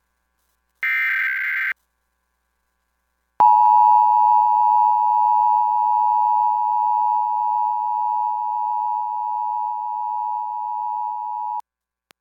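Emergency Alert System broadcast signals. About a second in, the last one-second burst of the SAME digital header data screeches. About two seconds later the EAS attention signal, a steady two-tone 853/960 Hz alarm tone, comes in loud, holds for about eight seconds and cuts off suddenly.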